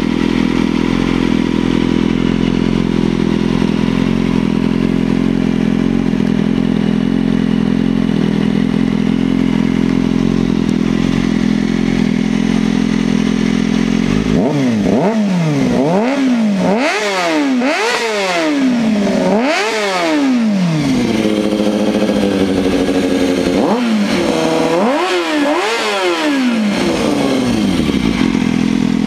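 Kawasaki ZX-6R inline-four running through a homemade exhaust: it idles steadily for about half the time, then is revved up and down in a series of quick throttle blips, with a brief hold at raised revs in the middle, before settling back to idle near the end.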